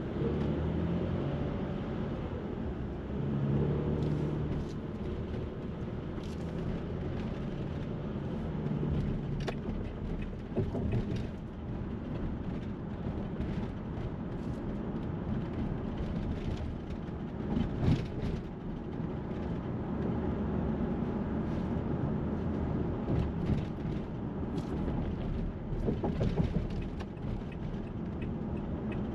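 Downtown street traffic: the steady noise of vehicle engines and tyres, with a low engine hum through the first several seconds and scattered clicks and knocks.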